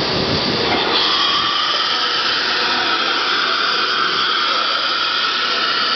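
A 4-axis CNC router with automatic tool changer running: a loud, steady machine whine over a hiss, with the whine growing stronger about a second in.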